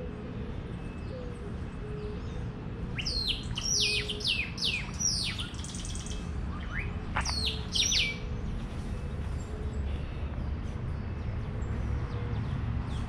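A songbird calling: a quick run of about six sharp, high notes that each sweep downward, then three or four more a couple of seconds later, over a steady low rumble.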